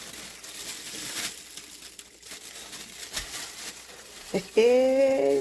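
Plastic cooking bag crinkling and rustling as it is handled and closed with its twist tie, with small irregular crackles. Near the end a person's voice is heard for about a second, louder than the crinkling.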